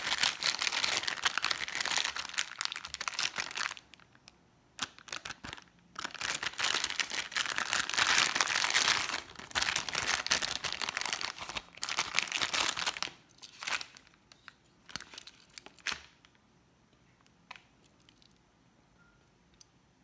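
Plastic Hot Wheels Mystery Models blind-bag pouch crinkling loudly as it is handled and torn open by hand, in two long spells of crackling. After about 13 seconds the crinkling stops, and a few light clicks and rustles follow as the die-cast car comes out.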